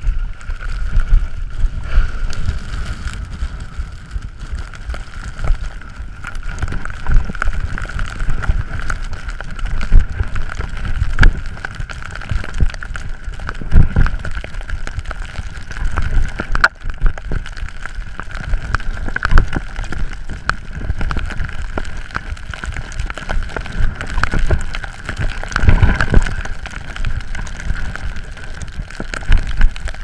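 Skiing downhill in a snowstorm, with a gusty wind rumble buffeting the camera's microphone, irregular scraping and hissing of skis over snow, and a steady high whistle running through it.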